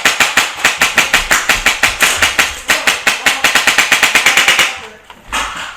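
Polarstar compressed-air airsoft light machine gun (ICS L86) firing full-auto, one long burst of sharp shots at about eight a second that stops near the end.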